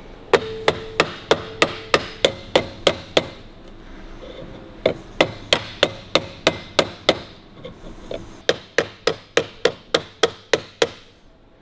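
Light, quick taps of a small hammer on a speedometer's metal rim, rolling its lip over onto the glass to hold it in. The taps come about three a second in three runs, with short pauses between.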